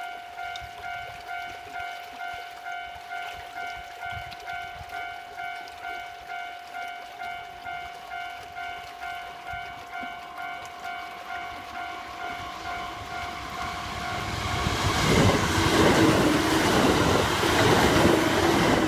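Japanese level-crossing alarm ringing its electronic two-tone 'kan-kan' bell a little under twice a second, while a Kintetsu Osaka Line train approaches. The train's running noise swells from about twelve seconds in and passes loudly over the crossing in the last few seconds, drowning out the bell.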